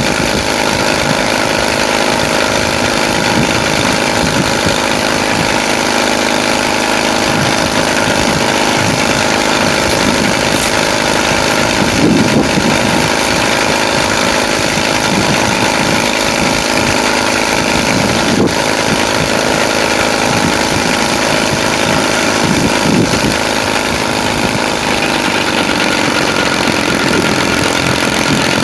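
Engine running at a steady idle, its note swelling briefly now and then.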